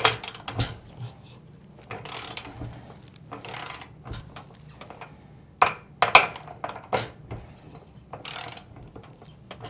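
Ratcheting torque wrench tightening the nuts on a snow-fence roof clamp, working in several short bursts of clicking strokes with pauses between.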